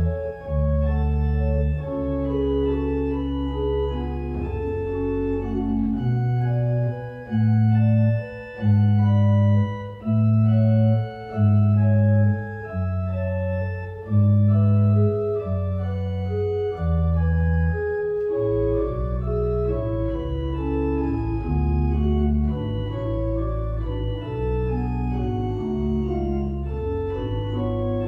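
Church organ playing a slow piece: sustained chords over a bass line of long, separately sounded notes, with a melody moving above.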